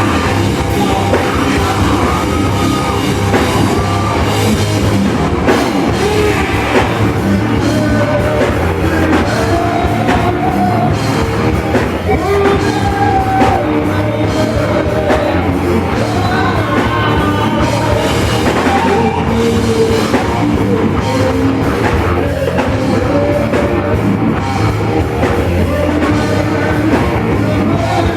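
Loud rock music: a band playing with drums and a singing voice.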